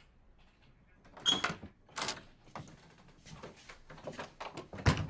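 Clicks and knocks of typing on a computer keyboard, together with an office door being opened, with a loud thump near the end.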